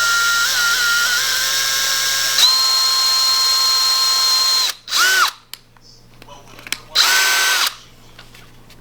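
Electric drill running steadily under load, its whine dropping in pitch about two and a half seconds in, then stopping just before five seconds. Two short trigger bursts follow, one spinning up and down quickly at about five seconds and another near seven seconds.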